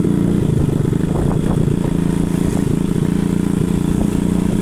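Motorcycle engine running at a steady pitch while the bike is ridden, heard from the rider's seat.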